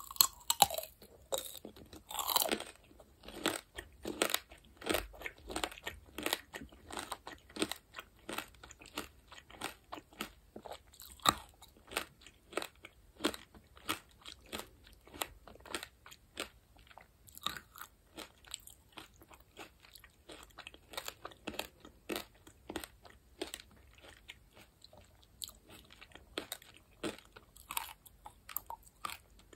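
Tanghulu being bitten and chewed close to the microphone: the hard candied sugar shell cracks into loud crunches in the first few seconds, then crunching and chewing go on with many small crackles that thin out toward the end.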